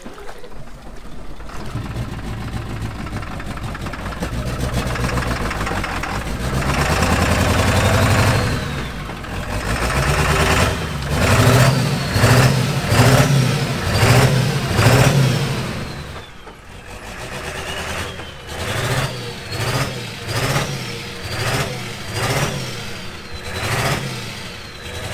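Ford pickup's diesel engine, its exhaust disconnected, revving hard in repeated short bursts about once a second, straining to reverse out of the mud under flood water. A high whistle rises and falls with each rev.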